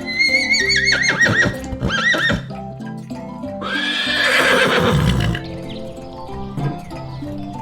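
Horse whinnying: several shaky calls that fall in pitch in the first two seconds, then a longer, breathier neigh from about three and a half to five seconds in, over background music.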